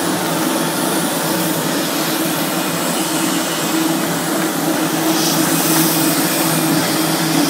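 Spindleless rotary veneer peeling lathe running steadily while it peels a log into a continuous veneer sheet: a constant motor hum under an even mechanical hiss.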